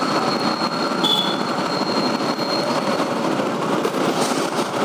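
Steady traffic noise from a motorcycle creeping through heavy city traffic close beside a bus: engines running under a continuous rumble, with a short high beep about a second in.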